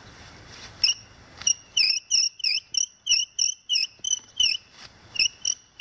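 Cedar bow drill squeaking as the bow is stroked back and forth, short squeals about three a second starting about a second in, each dipping and rising in pitch. A light scrape comes with the strokes as the bow drags across the ground.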